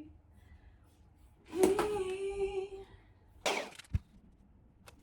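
A woman's short hummed note, held for about a second, starting about a second and a half in; then a brief rustle and a soft low thump near the end.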